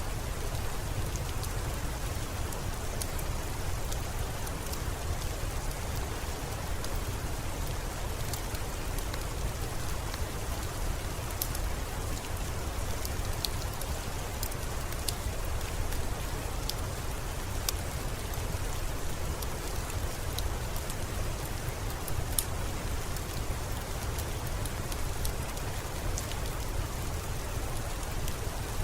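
Steady rain with a low rumble underneath, mixed with scattered sharp crackles of a wood fire.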